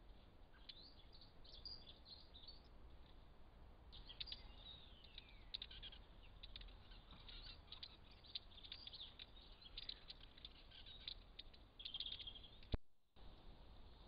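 Small garden birds chirping and twittering: many short, high calls, faint, over a steady background hiss from a camera trap's microphone. Near the end a sharp click is followed by a brief gap in the sound.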